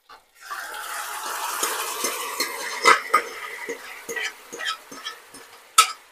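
Cooked mutton going into a kadai of hot oil with spices and ginger-garlic paste, sizzling at first and then dying down, while a spoon scrapes and clinks against the pan as it is stirred. A sharp clink comes near the end.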